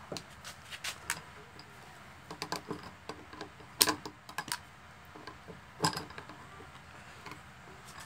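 Scattered metallic clicks and taps of pliers on the bolt and nut that fix a ceiling fan's downrod to its motor housing, with two louder clacks about four and six seconds in.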